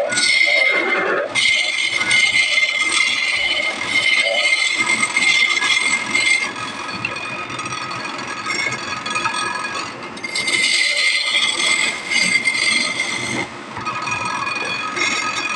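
Workshop machine running with a steady high whine over scraping and rattling; the whine drops out briefly several times.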